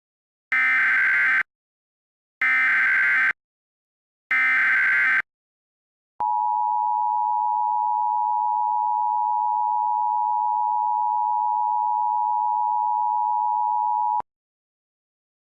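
Emergency Alert System opening: three one-second bursts of SAME header data tones, about two seconds apart. They are followed by the two-tone EAS attention signal (853 and 960 Hz together), held steady for about eight seconds and cutting off abruptly.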